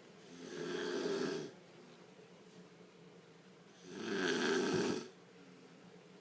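Elderly woman snoring loudly: two long snores, each about a second, some three and a half seconds apart.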